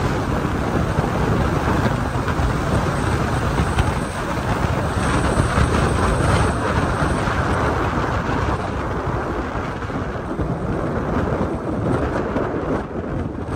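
Wind buffeting a microphone held up through the sunroof of a moving car, a loud steady rush with road rumble beneath it.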